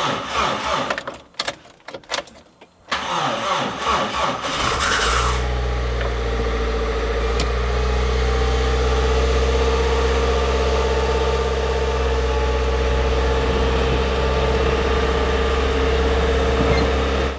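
After a few short clatters, the Piaggio Porter Sprint van's engine is started and catches about five seconds in. It then idles steadily.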